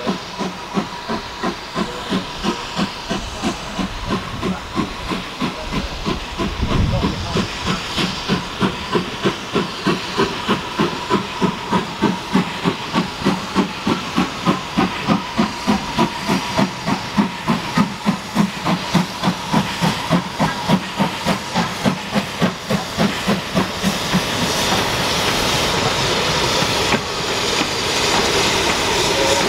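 Steam locomotive working hard, its exhaust beating in a regular chuff of about two beats a second. Near the end the beats give way to a steady rush of hiss and rumble.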